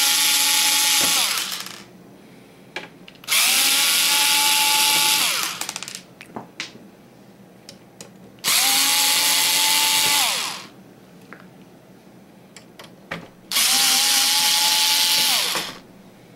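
Cordless drill-driver backing screws out of a steel frame: four runs of motor whine, each about two seconds long, each falling in pitch as it stops.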